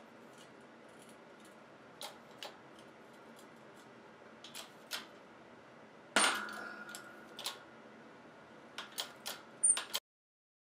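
Metal-on-metal clicks and taps from a flat steel bar wedged between a shaft collar and a tractor bevel gearbox housing, with one loud clank about six seconds in that rings on for about a second. A quick run of sharp clicks follows near the end.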